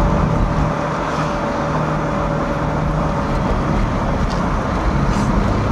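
Electric-converted pickup truck on the move, heard from inside the cab: steady road and drivetrain noise with a low hum, and a thin steady whine that fades out about three and a half seconds in.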